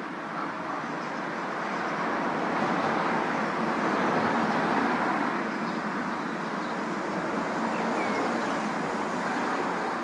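Steady rush of city traffic noise rising from the streets below, swelling in the middle and easing a little toward the end.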